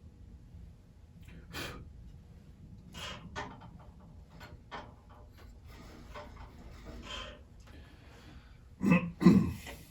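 Scattered light clicks and rustles of hands working on a bandsaw, then two louder knocks close together near the end.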